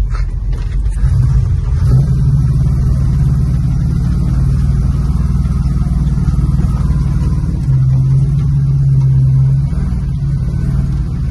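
Classic pickup truck's engine heard from inside the cab while driving on dirt. The engine note gets louder about a second in and holds steady, pulls harder for about two seconds near the eight-second mark, then eases off.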